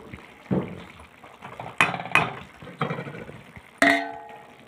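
A steel ladle knocking and scraping a few times in a kadai of cooked mixed vegetables, then a steel plate clanging near the end with a short metallic ring.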